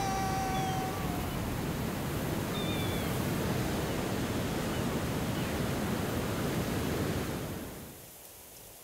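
Steady wind and sea-surf ambience, with a held musical note fading out about a second in. The surf noise falls away near the end.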